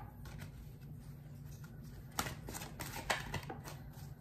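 Haindl tarot cards being shuffled by hand: a few soft, quick swishes starting about halfway through, after a quiet start with only a low hum underneath.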